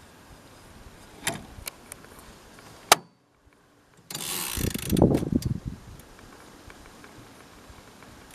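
A portable typewriter being handled: a few sharp mechanical clicks, a short dead break, then about two seconds of clattering and rubbing.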